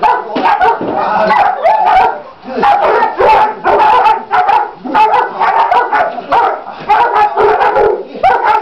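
Young German Shepherd dogs barking rapidly and almost without pause. This is excited drive barking at a decoy swinging a sack during protection training.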